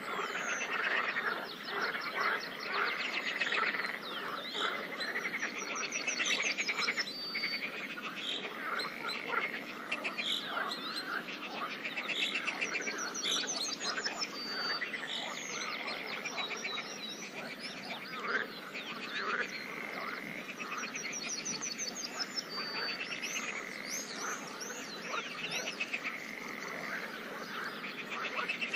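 Chorus of many frogs croaking at a pond, dense overlapping pulsed calls with no break. A short high note recurs every seven or eight seconds.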